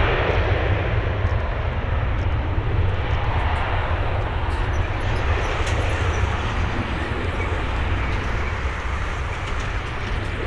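Boeing 737-800's CFM56-7B turbofan engines at takeoff thrust: a steady jet roar with heavy low rumble that slowly fades.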